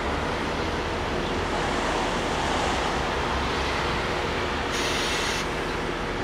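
Zillertalbahn diesel railcar idling at a standstill, a steady engine rumble with a low throb. A short hiss cuts in and out about five seconds in.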